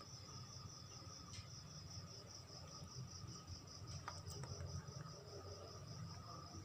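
Insects trilling steadily in a fast, high-pitched pulsing chorus, faint, over a low rumble, with a few small clicks.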